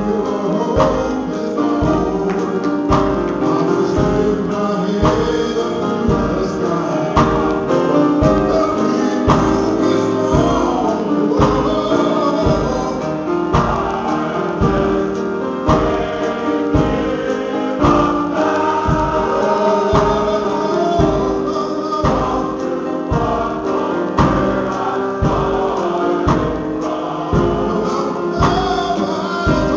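Male gospel chorus singing live, a soloist leading with the choir behind him, over instrumental backing with a steady beat about once a second.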